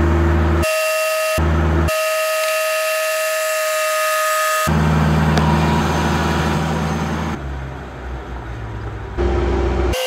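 Background music: sustained synthesizer chords that change every few seconds over a deep bass, which pulses in and out in the first couple of seconds.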